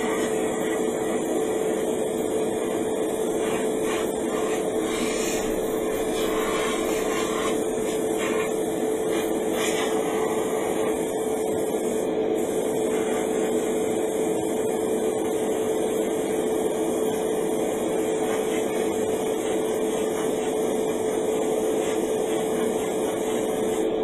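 Airbrush priming setup running: a steady mechanical hum with one constant tone under a hiss of air, from the compressor and spray booth as the cheap kit airbrush sprays primer.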